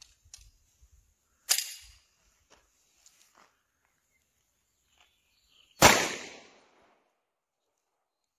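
A single 9 mm pistol shot firing a semi-jacketed round, about six seconds in, with a short trailing echo. A fainter, sharp crack comes about a second and a half in.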